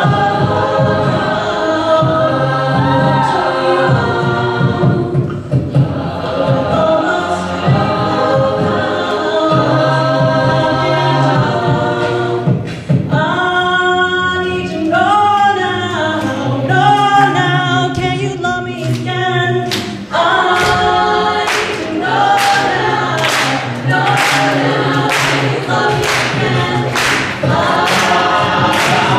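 Mixed-voice a cappella group singing in close harmony over a sung bass line. From about twenty seconds in, sharp percussive hits about one and a half times a second keep a steady beat under the voices.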